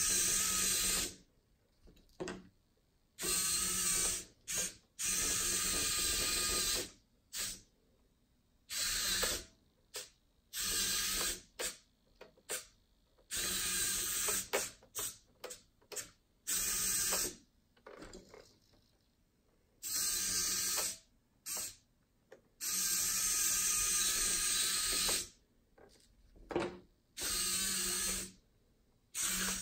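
SG90 continuous-rotation micro servos of a small 3D-printed RC track loader whirring through their plastic gears as they drive the tracks, starting and stopping over and over in bursts from a fraction of a second to about three seconds long.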